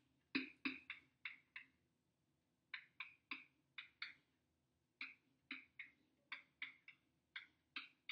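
Faint pen strokes of handwriting: about twenty short scratches in quick, irregular groups.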